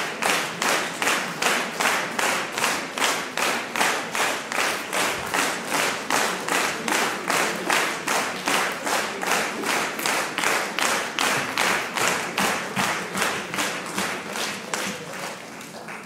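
Large concert audience applauding, many hands clapping together in a steady rhythm of about three claps a second over a dense wash of applause. The applause dies down near the end.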